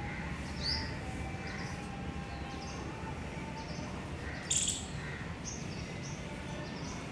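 Birds chirping: a string of short, high chirps with one louder, harsher call about halfway through, over a steady low outdoor rumble.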